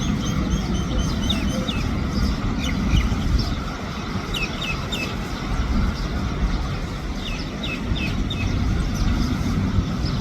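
Sparrows chirping in short bursts of a few quick notes, over a continuous low rumble that sounds like road traffic.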